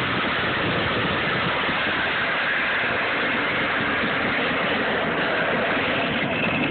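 Steady rushing road noise from a vehicle moving over asphalt while it tows a ride-on toy Jeep, with no breaks or changes.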